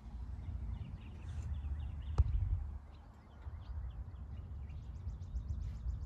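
Wind buffeting the microphone with an uneven low rumble, a single sharp knock about two seconds in, and faint chirps of small birds.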